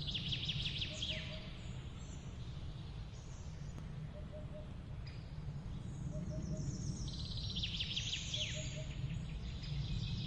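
Songbird singing two bursts of rapid high trills that end in quick downward slurs, one right at the start and another from about seven to nine seconds in. Short low double notes repeat every second and a half or so, over a steady low rumble of background noise.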